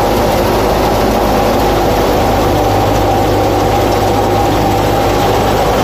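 Tractor-driven grain thresher running steadily: the tractor engine and the thresher's drum and belts make a constant hum that holds one pitch.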